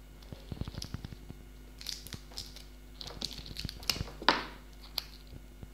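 Hands working the wound aluminium foil element out of a cut-open fan capacitor with a tester screwdriver: scattered small clicks, taps and crinkles, with one longer crinkling rustle a little after four seconds in.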